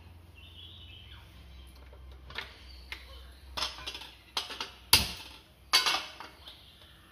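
A cooking pan and utensils clattering as the pan is set on the stove: a handful of sharp knocks and clinks, the loudest about five seconds in.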